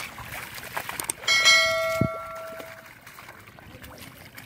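Bell 'ding' sound effect of a subscribe-button overlay: one bright bell strike about a second in, ringing out over about a second and a half, with a sharp click partway through the ring.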